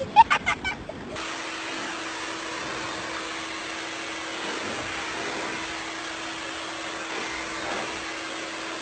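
A few short, sharp calls in the first second, then a pet grooming blower dryer running steadily through its hose: an even rush of air over a constant motor hum, starting about a second in.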